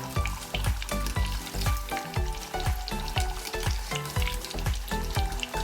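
Batter-coated chicken wings deep-frying in hot oil, a steady sizzle with many small pops as they are moved around in the pot. Background music with a steady beat runs underneath.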